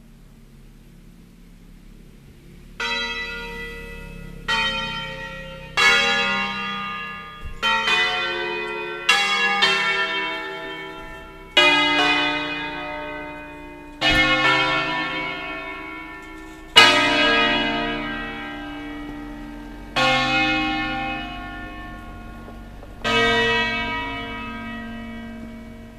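Church bells from an eight-bell peal in B-flat, cast by Pruneri in 1909 with three by Ottolina in 1948, rung electric-manually. About three seconds in they begin to sound one at a time: about a dozen single strikes at uneven spacing, each ringing on and fading as the next comes in.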